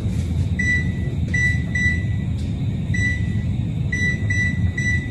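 Wall oven's control panel beeping as its keypad is pressed to set a 450° preheat: about seven short, high beeps, a few held a little longer, over a steady low rumble.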